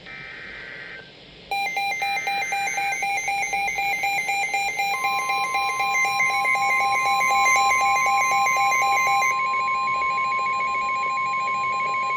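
NOAA Weather Radio alert: short warbling SAME data bursts open it, rapid electronic beeping from the receiver's alarm starts about a second and a half in, and about five seconds in the long, steady 1050 Hz warning alarm tone begins under the beeping. This is the tone sequence that heads a warning broadcast.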